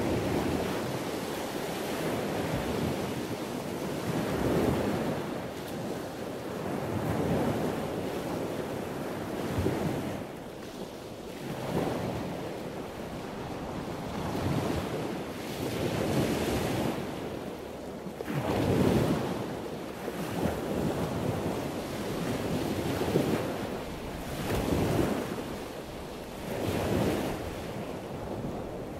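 A rushing noise like breaking surf, swelling and fading every two to three seconds.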